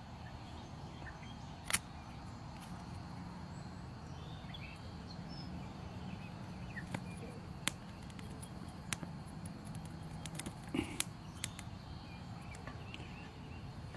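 Faint outdoor ambience, a steady low background noise, broken by a few scattered sharp clicks.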